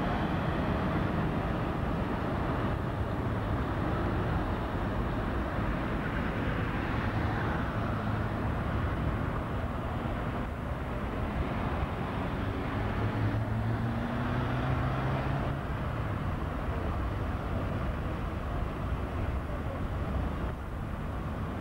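Steady city traffic noise from cars passing around a large square, with an engine's hum coming through more strongly about two-thirds of the way in.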